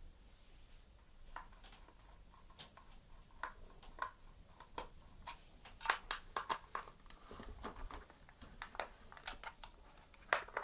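Screwdriver turning the Phillips screws in the plastic casing of a car tyre pump, with the casing being handled: faint, irregular small clicks and ticks that come thicker in the second half.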